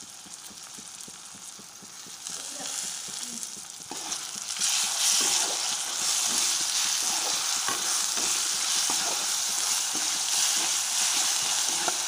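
Chopped tomatoes sizzling in hot oil with onion and spice paste in a kadai, being fried into the curry masala. About four seconds in a metal spatula starts stirring, and the sizzling grows louder and busier, with short scraping strokes against the pan.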